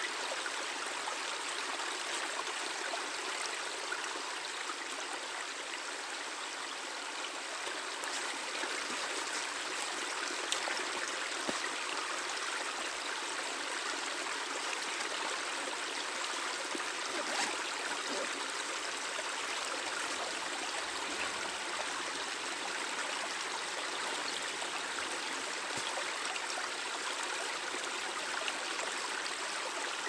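Small forest brook babbling steadily over stones, with a few faint knocks here and there.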